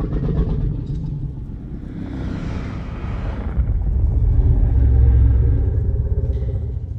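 A Godzilla monster sound effect: a deep, rumbling sound lasting about seven seconds. A hissing layer swells about two to three seconds in, and the rumble is heaviest near the end before it stops.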